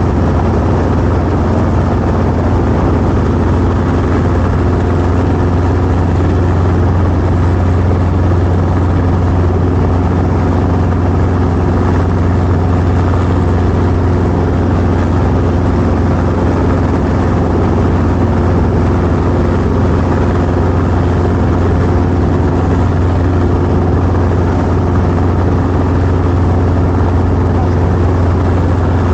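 Helicopter engine and rotors running, a loud, steady drone with a strong low hum and several steady tones above it, unchanging throughout.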